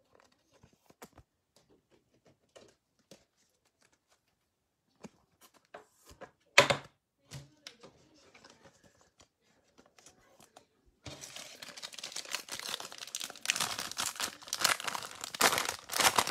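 A foil trading-card pack wrapper crinkling and tearing open, starting about eleven seconds in and loudest near the end. Before it there are a few faint light clicks and one sharp tap about six and a half seconds in.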